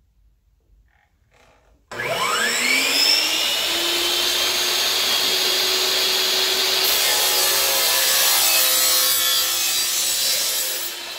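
Hitachi miter saw motor starting about two seconds in with a rising whine, then running steady while its blade cuts through a thin SmartCore vinyl flooring plank. The sound drops off near the end as the cut finishes.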